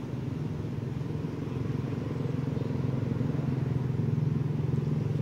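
A steady low engine rumble, like a motor vehicle running nearby, getting a little louder after the middle.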